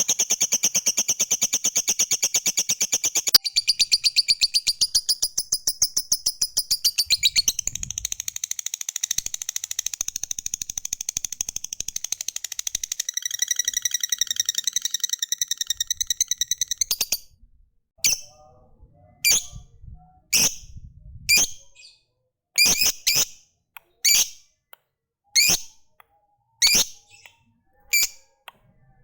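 Lovebird giving a long, very fast high-pitched rattling trill (the 'ngekek panjang' long chatter) for about seventeen seconds. It then breaks off into short single chirps spaced about a second apart.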